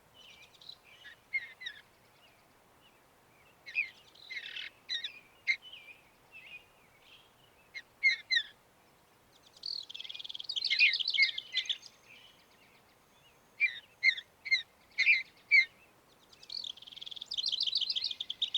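Mountain bluebird singing: clusters of short, high warbled notes separated by brief pauses, with two longer runs of fast repeated notes, one in the middle and one near the end.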